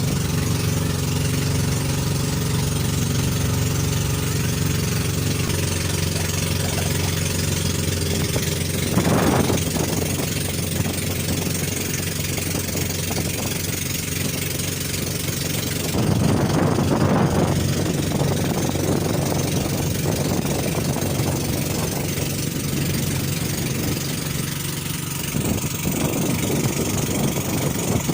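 Pump boat's inboard engine running at a steady speed, its even drone carrying throughout. A few louder rushes of noise break over it, about nine seconds in, again for a couple of seconds midway, and near the end.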